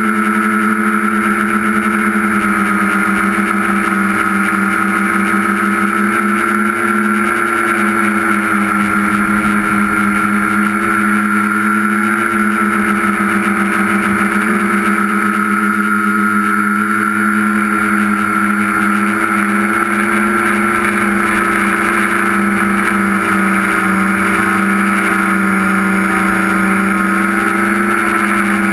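Tricopter's electric motors and propellers heard from the onboard camera: a loud, steady buzz with an even pitch that wavers only slightly.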